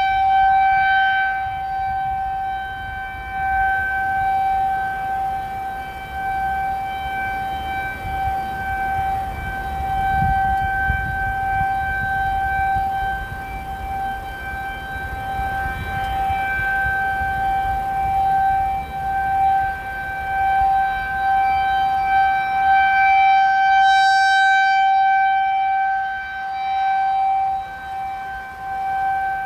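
Federal Signal 2001-SRN electronic outdoor warning siren sounding its steady alert tone, one held pitch with no wail. The sound swells and fades as the rotating horn turns toward and away from the listener.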